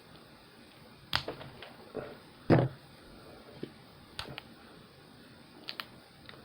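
Clipper snipping and working open plastic packaging: a scatter of short, sharp clicks and snaps, the loudest about two and a half seconds in.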